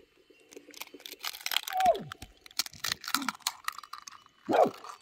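Eggshells cracking against the rim of a ceramic bowl and being pulled apart, a run of small crackling clicks as the eggs drop in. A dog gives two short whines that fall in pitch, one about two seconds in and one near the end.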